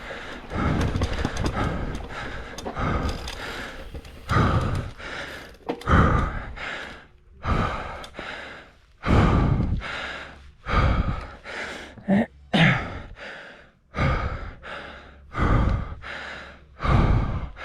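A person breathing hard into the microphone, with loud exhales at a steady pace of about one every second and a half.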